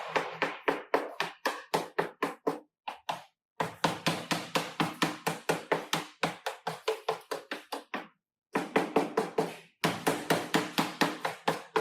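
Rapid, even hammer taps on a steel body panel, about five a second in runs with short breaks, each tap ringing: dent work on the panel.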